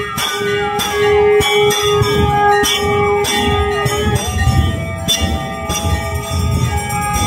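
Brass temple bells struck over and over, roughly twice a second, each strike left ringing, during a Hindu aarti. Under the bells run a held tone and a wavering melodic line.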